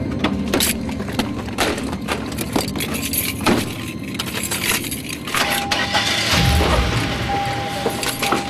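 Car keys jangling and clicking at the ignition, with a string of sharp knocks, over background music.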